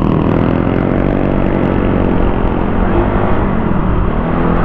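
Motorcycle engine running steadily as the bike rides along, with a constant rush of road and wind noise beneath it.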